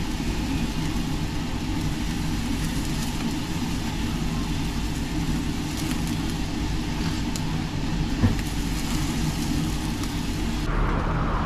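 Meat sizzling on a charcoal yakiniku grill's wire mesh, over a steady low mechanical hum, with a single knock about eight seconds in. Near the end it gives way abruptly to street traffic.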